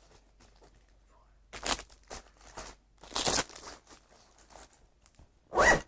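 Rustling and crinkling as the contents of a backpack are handled, in four short bursts.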